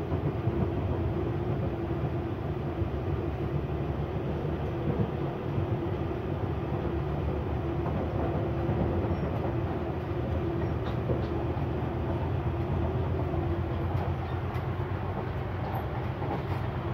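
Auckland AM class electric multiple unit heard from inside the carriage while running at speed: a steady rumble of wheels on rail with a constant hum and a few faint clicks near the end.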